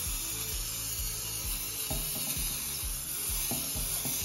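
Olive oil cooking spray hissing steadily as it coats the inside of a bundt pan, one continuous spray that cuts off suddenly.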